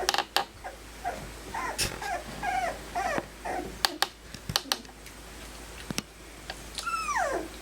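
Four-week-old Aussiedoodle puppies whimpering in short high-pitched squeaks, with a longer falling whine near the end. Scattered sharp clicks run among the calls.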